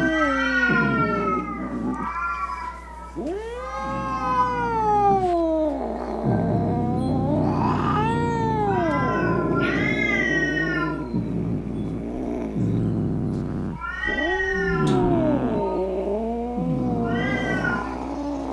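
Cat yowling: a string of long, drawn-out meows, each rising and then falling in pitch, with short pauses between them, the angry calls of an agitated cat.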